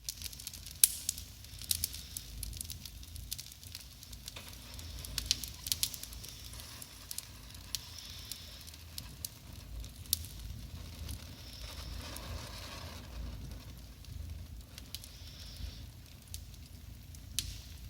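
Wood fire burning in a fireplace, crackling with irregular sharp pops (the loudest about a second in), with short spells of hissing and a steady low rumble underneath.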